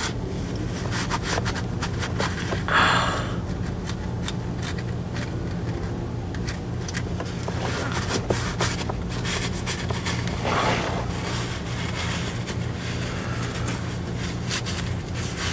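Cloth rag rubbing and scraping in short, irregular strokes along the pan mating surface of a Jeep's 44RE automatic transmission case, wiping it clean for the pan gasket, over a steady low hum.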